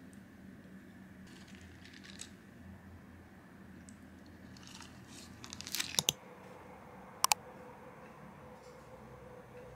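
Typing on a laptop keyboard: a quickening run of key clicks about six seconds in, then two sharp taps a second later, over a faint steady hum.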